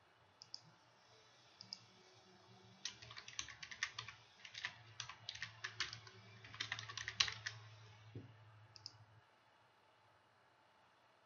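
Typing on a computer keyboard in two quick runs of key clicks in the middle, with a few mouse clicks near the start and near the end.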